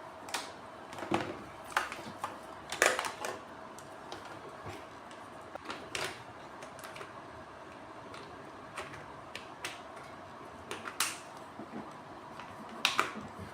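Scattered clicks and knocks of hands handling plastic hose fittings and plugs on an HHO generator setup, a few seconds apart, over a faint steady hum.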